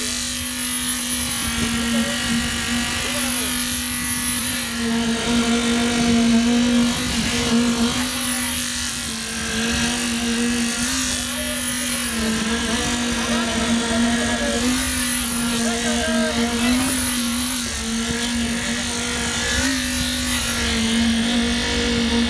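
Internal needle (poker) concrete vibrator running, its needle held down in freshly placed concrete. A steady hum whose pitch dips slightly now and then. It is compacting the concrete, driving out entrapped air.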